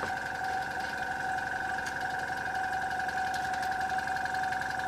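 A steady high whine in two tones, with a faint hiss, from a small electric machine running continuously.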